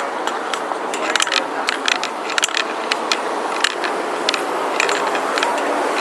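Busy street noise: a steady traffic rumble with many irregular sharp clicks and taps over it. No bell is sounding.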